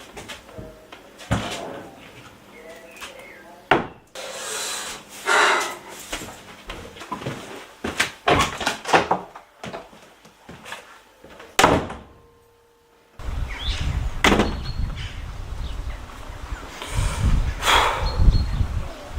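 A sequence of separate film sound effects: sharp knocks and thuds, with door handling and a door slam among them, and short scraping or rustling noises. After a brief silence about two-thirds of the way in, a steady low rumble starts, with more knocks over it.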